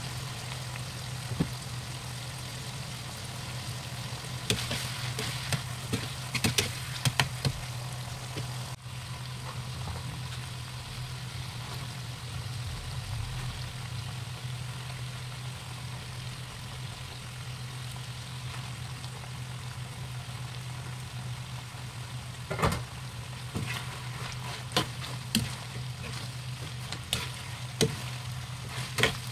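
A pan of meat and vegetables frying with a steady sizzle, with sharp clicks and scrapes of a spatula against the pan as it is stirred, most of them near the start and over the last few seconds. A steady low hum runs underneath.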